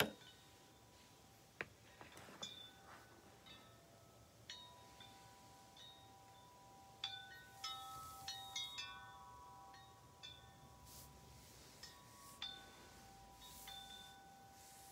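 Metal tube wind chimes ringing softly as the wind knocks the tubes together: irregular strikes whose tones hang on and overlap, with a busier flurry of strikes about halfway through. A sharp bump right at the start is the loudest sound.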